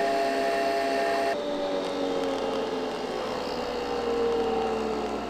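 Nespresso capsule coffee machine brewing into a mug: a steady mechanical whir and hum. About a second in it changes, and then one tone slowly falls in pitch.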